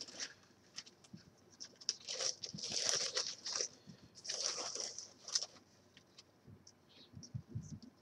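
Clear plastic bag crinkling and rustling as hands handle and open it, in two main stretches with small crackles between, and a few soft low knocks near the end.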